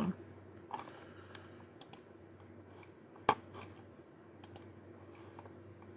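A few faint, scattered clicks and taps, with one sharper tap a little over three seconds in, over a low steady hum of room noise.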